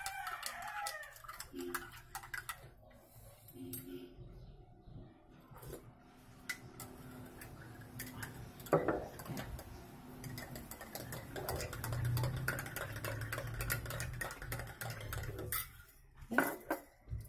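Kitchen clatter: dishes and utensils clinking and knocking in scattered clicks as someone works at a counter.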